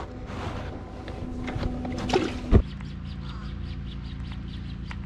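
Rustling and clicking handling sounds on a bass boat deck as a caught bass is put away. About two and a half seconds in comes one loud hard thump, and a steady low hum runs after it.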